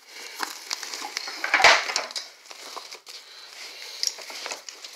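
Fabric of a tactical backpack rustling and crinkling as it is handled, with one louder burst of rustling about one and a half seconds in.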